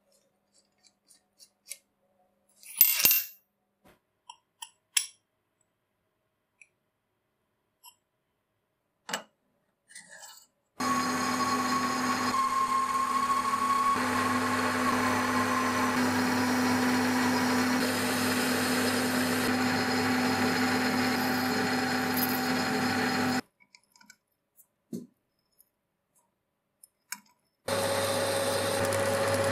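A few scattered light clicks and knocks, then a metal lathe runs for about twelve seconds with a steady hum and whine while a carbide insert turns a metal shaft. It stops abruptly, a few more clicks follow, and the lathe starts running again near the end.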